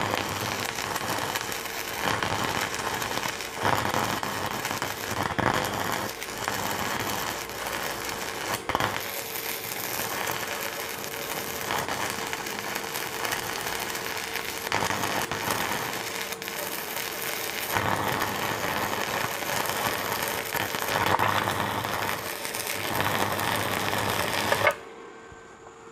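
Stick-welding arc from a Jasic ZX7-200PRO inverter welder cutting through steel with an electrode: a continuous crackling, sizzling arc that holds without breaking, with a faint steady hum beneath it. It stops abruptly near the end as the electrode is lifted away.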